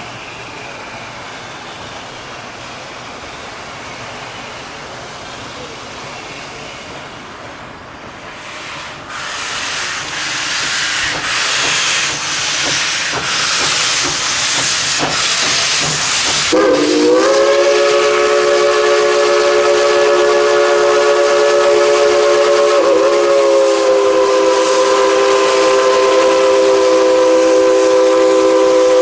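Steam locomotive venting a loud hiss of steam from about nine seconds in. About halfway through its whistle starts, several notes sounding together, and is held steadily to the end with one brief dip.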